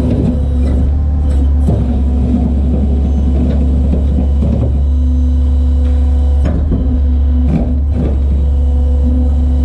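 A motor vehicle running, a steady low engine and road rumble with a constant drone, and a few short knocks over it.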